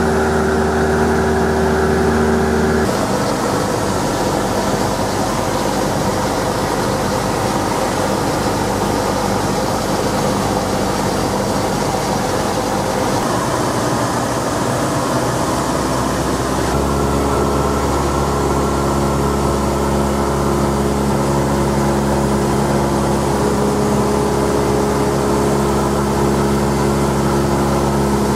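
Cessna 172's piston engine and propeller droning steadily in flight, heard inside the cabin. The tone of the drone changes abruptly about three seconds in and again a little past halfway.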